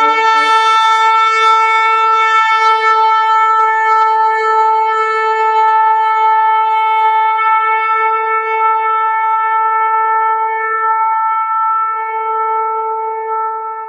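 Shofar (ram's horn) sounding one long, steady blast with a bright, buzzy tone that tapers off near the end.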